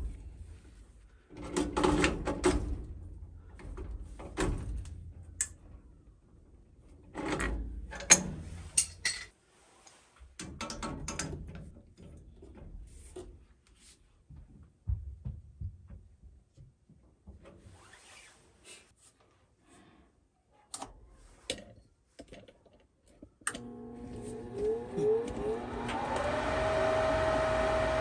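Scattered knocks, clicks and clatter of parts and tools being handled. About 23 seconds in, an electric motor starts, its pitch sweeping up as it spins up, then runs on with a steady hum and whine that grows louder near the end.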